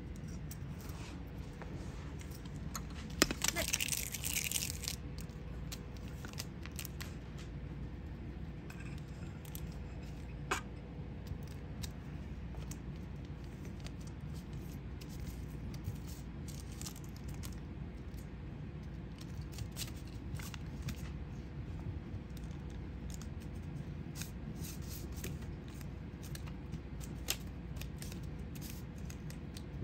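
A kitten batting a candy wrapper and a sheet of paper around on a tile floor: scattered crinkles, rustles and light clicks, with a louder stretch of rustling about three to five seconds in. A steady low hum runs underneath.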